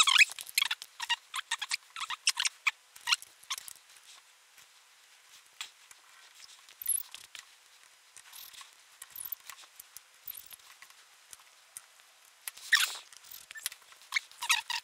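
Small clicks, taps and scratchy rustles of hands fitting a circuit board and ribbon cables into a field monitor's plastic housing. They come thick at first, thin out to scattered ticks in the middle, and bunch up again near the end.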